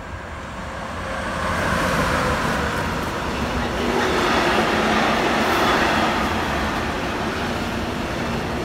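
Siemens Vectron electric locomotive hauling an intermodal freight train past at close range. The noise swells over the first two seconds as the locomotive arrives, then stays loud as the loaded freight wagons roll by on the rails, with a faint steady hum.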